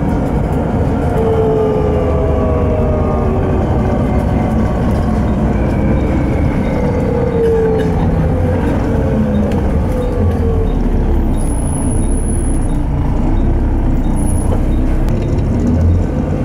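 Volvo B7TL bus's Volvo D7C diesel engine and Voith automatic gearbox heard from inside the passenger saloon while under way, a steady drone with driveline whines gliding up and down in pitch as the bus changes speed.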